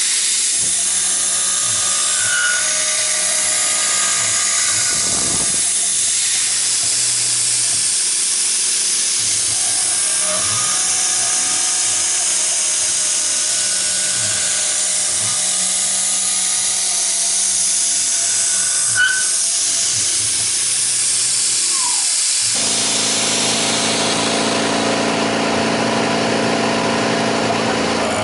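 Tormach PCNC 1100 CNC milling machine cutting a brass workpiece: a loud, steady hiss of the spindle and cutter, with lower tones rising and falling over and over as the axes move. The sound changes about 22 seconds in.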